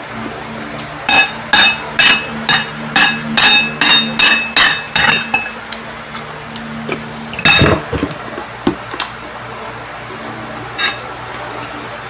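Metal spoon clinking against a ceramic bowl: about ten ringing clinks in quick succession over some four seconds, then a single louder, duller knock about seven and a half seconds in, followed by a few lighter clinks.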